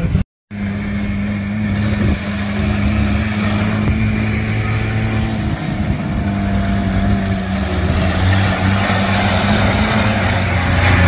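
Small homemade tractor's engine running steadily at a constant pitch as it drives along, growing louder as it comes close near the end. The sound cuts out completely for a moment just after the start.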